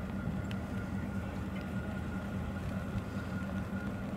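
Fireboat's diesel engines running as it moves slowly by, a steady low drone with a faint steady whine above it.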